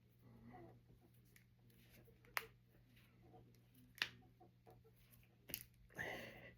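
Finger knuckles being cracked: three sharp, separate pops spaced a second or more apart, the last followed closely by a smaller one, then a brief rustle near the end.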